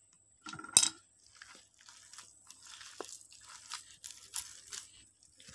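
A hand squeezing and mixing coarsely ground, soaked red-lentil batter in a steel bowl, giving irregular soft, crunchy, squishy noises. A single sharp click a little under a second in is the loudest sound.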